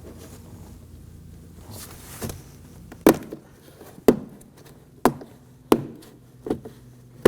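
Plastic door trim piece being pulled off a car door panel, giving a series of about six sharp snaps roughly a second apart as its retaining clips pop loose.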